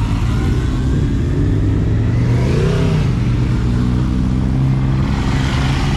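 Car engines running at low revs close by, one of them revved up briefly and back down about halfway through.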